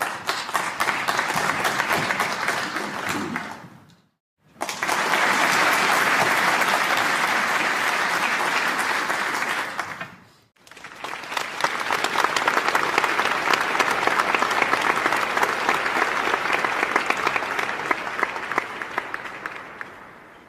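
Audience applause: dense clapping from a large crowd, in three separate stretches that each fade out. There is a short silent gap about four seconds in and a brief drop about ten seconds in.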